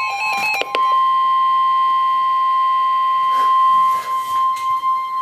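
Emergency alert warning tone: a single steady high-pitched beep, the weather-radio 1050 Hz alarm tone, sounding ahead of a severe thunderstorm warning. It comes in about a second in after a few clicks and holds for over four seconds.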